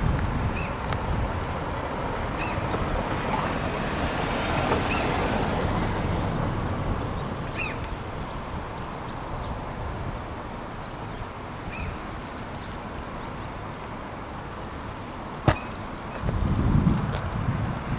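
Outdoor waterside ambience: a steady wash of wind and traffic noise, with a few short bird calls in the first half. A single sharp click comes about 15 seconds in, and wind rumbles on the microphone near the end.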